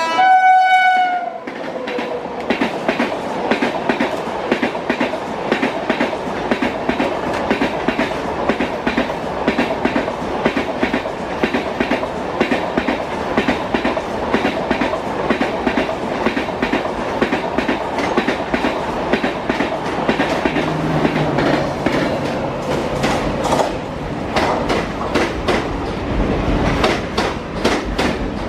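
A train horn sounds for about the first second and a half and falls in pitch as it ends. Then a train's wheels run over rail joints in a steady, even clickety-clack with a constant rumble underneath.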